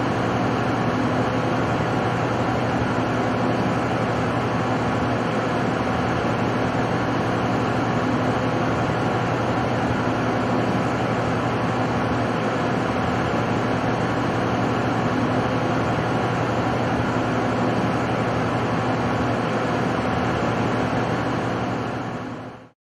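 Steady electrical and mechanical hum of the Rotoweld 3.0 automated pipe spool welding machine running, a constant low mains-hum tone under an even rushing noise, fading out quickly near the end.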